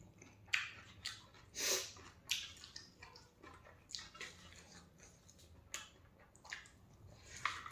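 Eating by hand: irregular short wet chewing sounds, along with soft squishing as rice is squeezed and mixed by hand on a steel plate.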